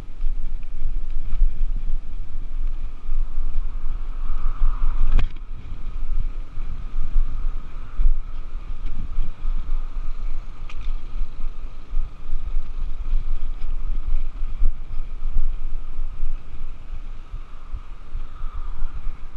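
Wind buffeting the microphone of a camera on a moving bicycle, a constant uneven low rumble, with faint riding noise beneath it. A single sharp click comes about five seconds in.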